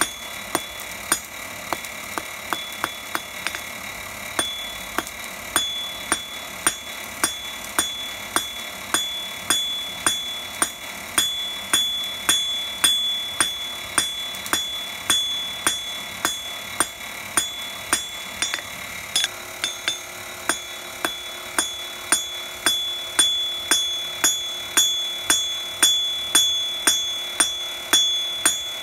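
Hand hammer striking a thin hot metal bar on an anvil in a steady rhythm, just under two blows a second, each blow followed by a high ringing from the anvil.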